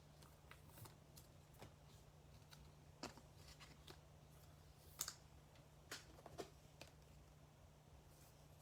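Near silence: a low steady hum with a few faint clicks and light handling noises of trading cards being handled.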